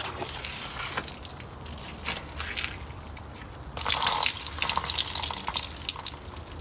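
Rainwater dripping in scattered drops, then from about four seconds in a louder stream of water splashing down for a couple of seconds before it eases back to drips.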